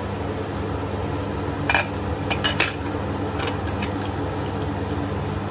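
Aluminium pressure cooker lid clanking against the pot as it is fitted on and closed, several sharp metallic knocks between about two and three and a half seconds in, over a steady hum.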